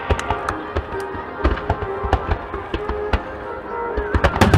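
Fireworks crackling and popping in quick succession, with deeper booms about a second and a half in and again near the end. Music plays underneath.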